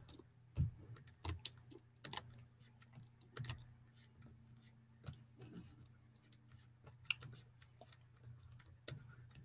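Faint, irregular clicks and taps at a computer workstation, a second or so apart, over a low steady hum.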